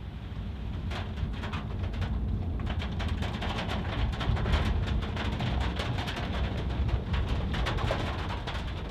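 Inside a moving car's cabin: the steady low rumble of engine and tyres on the road, with irregular sharp ticks of rain striking the roof and windscreen, coming thicker from about three seconds in.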